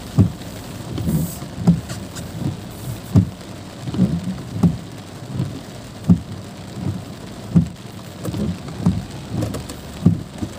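Heavy rain drumming on a car's windshield and roof, heard from inside the car. The windscreen wipers thump steadily, about once every 0.7 s.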